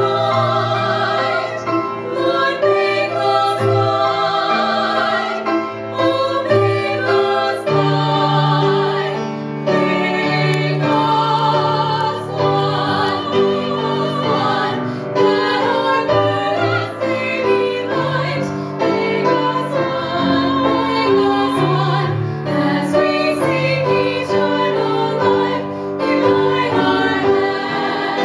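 A trio of women's voices singing a sacred song in harmony through microphones, with vibrato on the held notes, over keyboard accompaniment holding steady low notes.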